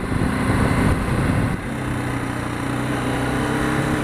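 BMW G 310 GS single-cylinder engine running under way, with wind rush. The note is uneven at first and settles to a steady pitch about a second and a half in.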